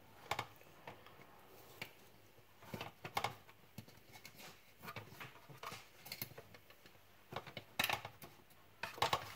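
Scattered small plastic clicks, knocks and scrapes as a screwdriver pries a plastic part off the motor of an AEG CX7 cordless vacuum, in several short clusters.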